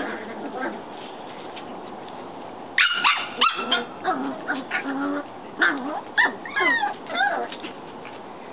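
Shelties barking and yipping: a few sharp barks about three seconds in, then a run of high yips and whines that rise and fall, stopping near the end.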